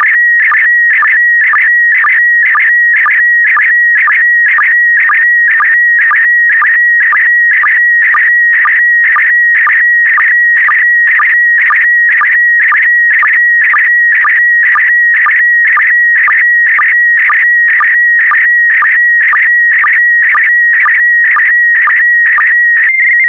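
Slow-scan TV (SSTV) picture transmission in PD120 mode: a warbling electronic tone centred near 2 kHz, pulsed by a sync beat about twice a second as image lines are sent. Near the end it settles briefly into one steady tone.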